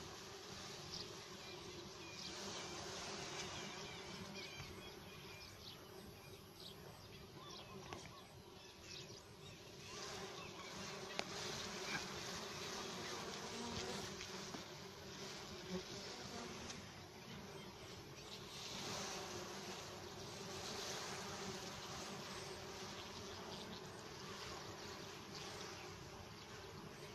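A cluster of wild honey bees on their exposed comb, buzzing together in a steady, low hum.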